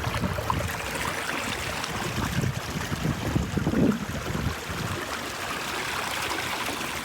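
Water rushing and splashing past a kayak as an electric trolling motor, set to speed 5 (its top speed), drives it upstream against the current, with a faint steady motor hum in the first couple of seconds.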